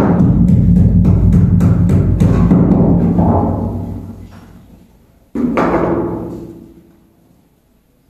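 Music with heavy drums and percussion that fades out about four seconds in, followed by one last heavy hit that rings out and dies away.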